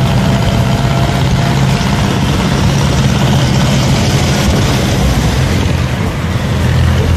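Engine of an open-sided passenger vehicle running steadily under way, heard from inside with road and wind noise coming through the open side.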